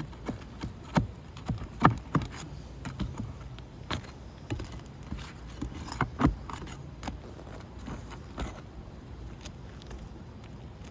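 Hand tools prying at asphalt roof shingles and their nails, giving sharp metallic clicks and scrapes every second or two that thin out toward the end, over a steady low rumble.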